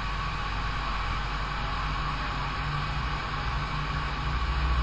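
Mercedes M278 twin-turbo V8 idling steadily after its faulty cylinder-5 ignition coil has been replaced, running without the earlier misfire. It grows slightly louder near the end.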